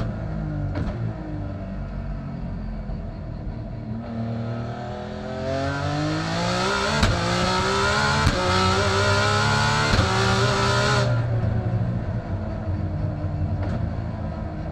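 Twin-turbo 2.8-litre RB26 straight-six of an R34 Skyline GT-R race car heard from inside the cockpit, running at lower revs and then accelerating hard from about four seconds in, its pitch climbing in steps broken by sharp clicks of quick upshifts. A rushing hiss comes in with the hard acceleration, and the revs drop back as it lifts off about eleven seconds in.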